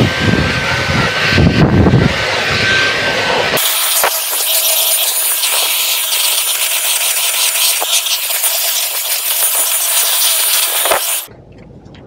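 Dyson Gen5detect cordless stick vacuum running on boost mode, a steady motor whine with the rush of suction, sucking up dirt from car carpet. Partway through, the sound abruptly turns thinner and higher-pitched, and it drops away shortly before the end as the vacuum is switched off.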